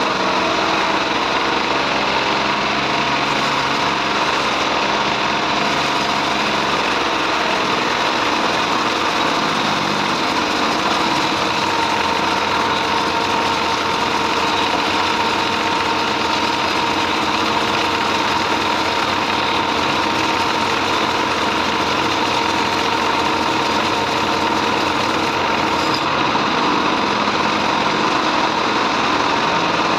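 Band sawmill running steadily, sawing trembesi (rain tree) wood, a loud continuous machine drone with a steady high whine that is strongest through the middle.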